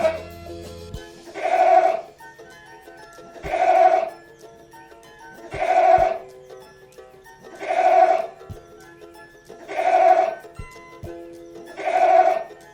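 A goat bleating, the same short call repeated about every two seconds over background music.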